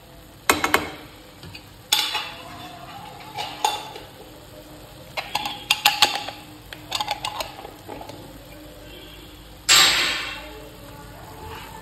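A spoon stirring thick carrot halwa in a pan, mixing in cardamom powder as the halwa finishes cooking. It gives irregular clinks and scrapes against the pan, with one louder clank near the end.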